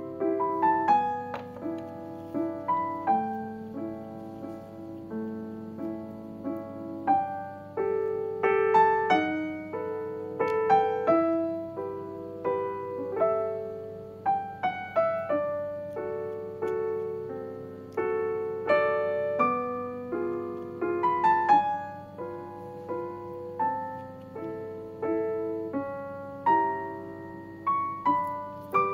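Solo piano background music: a gentle melody of single notes over chords, each note struck and fading.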